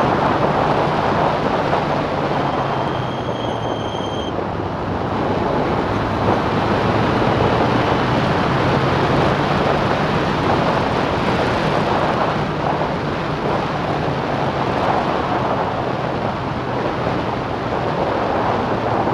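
Onboard sound of a Clubman single-seater race car at speed: its engine running steadily under load, mixed with heavy wind rush over the microphone.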